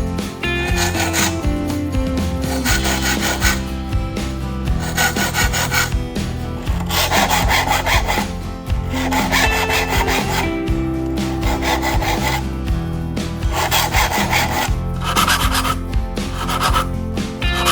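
Hand saw cutting wood in repeated rasping strokes, about one every second and a half, over background music.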